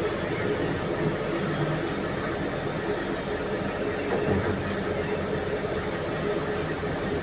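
Heavy diesel engines of mining machinery, an excavator and haul truck, running steadily with a low, even drone.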